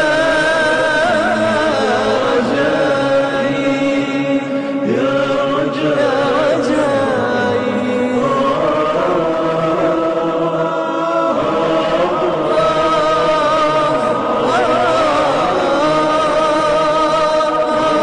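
Wordless vocal chorus of an Arabic nasheed: several voices holding long, layered notes with a slight waver, changing chord every few seconds.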